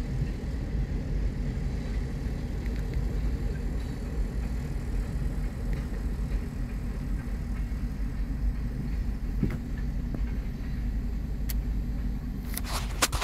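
Steady low vehicle rumble heard from inside a car's cabin at a railroad crossing, with a freight train of tank cars clearing the crossing. A single sharp click comes near the end, followed by a few more.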